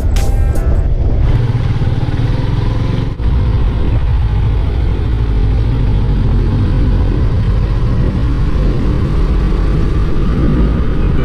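Motorcycle ride recorded on a camera mounted on the bike: a steady heavy wind rumble mixed with engine and road noise, with a short dip about three seconds in.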